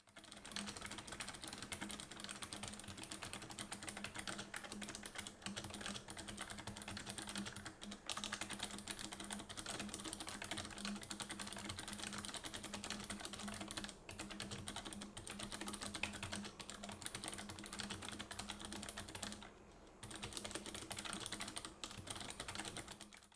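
Fast, continuous typing on a Razer Ornata V2 keyboard, whose Mecha-Membrane switches put a mechanical click part over a rubber dome. It gives a rapid patter of key clicks, like a clicky mechanical keyboard, with two brief pauses.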